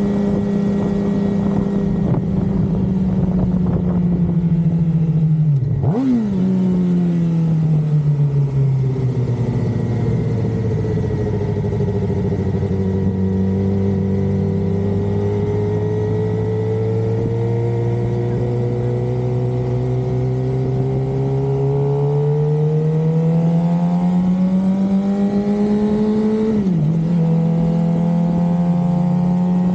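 2023 Suzuki GSX-R600's inline-four engine under way, heard from the tank with wind rush. The revs fall, spike briefly about six seconds in as on a blipped downshift, hold low and steady for a long stretch, then climb for a few seconds and drop suddenly near the end as on an upshift.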